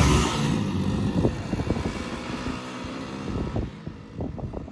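Two Hero commuter motorcycles, a Splendor and an HF Deluxe, accelerating hard in a drag race, their small single-cylinder four-stroke engines fading steadily as they pull away into the distance.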